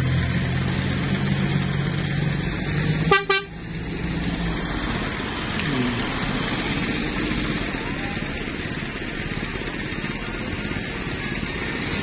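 A vehicle horn held on steady low tones for about three seconds, ending with a sharp click, then the steady noise of engines and tyres on the road.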